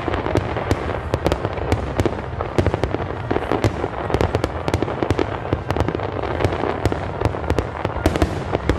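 Fireworks display going off: many shells bursting in quick succession, a dense, unbroken run of bangs and crackling over a continuous low rumble.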